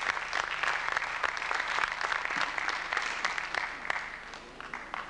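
Audience applause, a dense clapping that dies away near the end.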